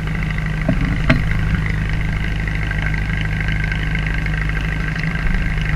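Engine running steadily with a low, even hum aboard a fishing boat, with a brief click about a second in.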